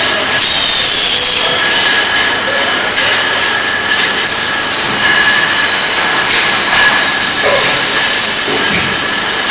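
Automatic shrink-wrap machine for milk bottles running: a loud, steady hiss from the shrink tunnel and its blowers, with a thin, steady high whine and scattered rattles from the conveyor.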